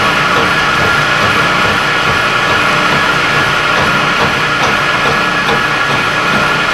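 Vertical milling machine running steadily while taking a light cleanup pass, a loud even machine noise with a constant high tone.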